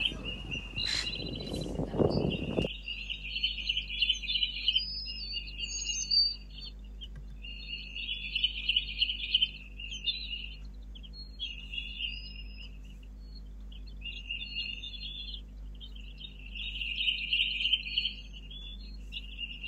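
Small birds twittering in high, rapid clusters of a second or two, repeating on and off. A loud rustling noise runs under it for the first few seconds, then stops abruptly.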